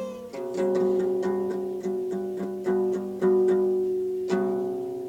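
Guitar strummed or plucked in a steady rhythm, about three strokes a second on the same chord, with one stronger stroke near the end.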